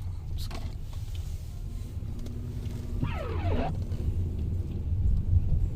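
Steady low rumble of a car driving, heard from inside the cabin, with a short falling tone about three seconds in.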